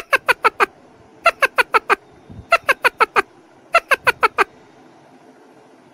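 Bird-like chirping in four bursts, each a quick run of five sharp notes, the bursts a little over a second apart.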